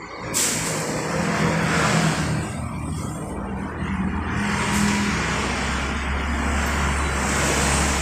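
Loud playback through a sound system of 15-inch subwoofers and line-array speakers during a sound check: a dense hissing sound over steady deep bass. It starts suddenly about half a second in, and the bass grows stronger in the second half.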